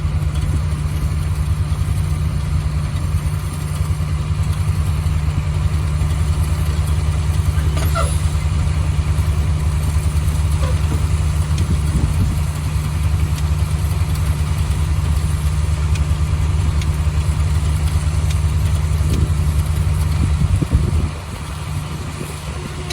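A large vehicle engine running steadily at a constant speed, a low even hum, which drops quieter near the end.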